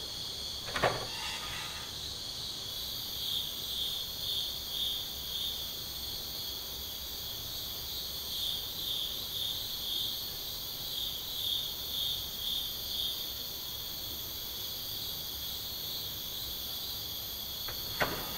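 Night chorus of crickets chirping steadily in a pulsing rhythm. A single sharp knock sounds about a second in, and a fainter one near the end.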